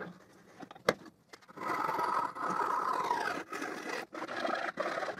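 A tool cutting away part of a plywood strip: a rough, rasping run of about three and a half seconds, with brief breaks, starting about a second and a half in after a single sharp click.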